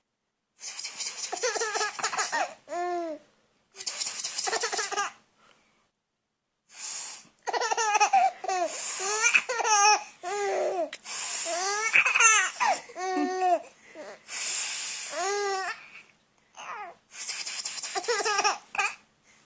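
Baby laughing in repeated bouts of high, arching squeals and giggles, alternating with bursts of breathy hissing noise, with a short pause about six seconds in.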